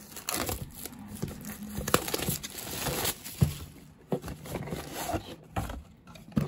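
Plastic shrink-wrap crinkling and tearing as it is cut and peeled off a cardboard trading-card box, with light knocks and clicks as the box is turned in the hands.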